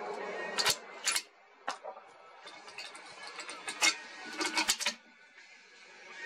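Several clusters of sharp metallic clicks and clacks, the loudest about a second in and again between about four and five seconds: a .338 Lapua Magnum precision rifle's bolt being worked between shots.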